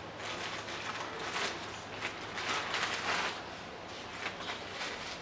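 Plastic packaging bags rustling and crinkling as they are handled and opened, in a run of short irregular scrapes.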